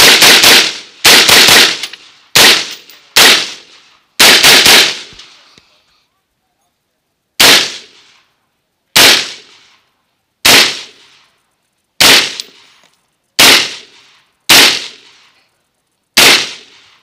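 Semi-automatic AR-style rifle firing: a quick string of shots in the first five seconds, a pause of about two seconds, then seven single shots about one and a half seconds apart.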